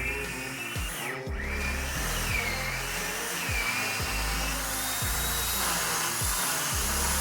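Background music with deep bass notes and a steady kick-drum beat.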